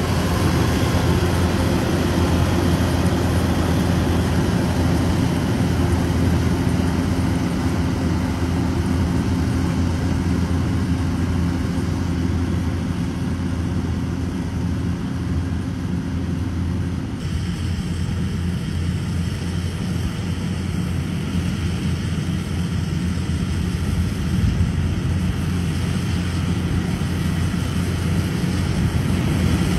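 Kubota DC-105X combine harvester's diesel engine running steadily through its aftermarket Cambodian-style exhaust pipe, with a deep drone; the tone shifts slightly about two-thirds of the way through.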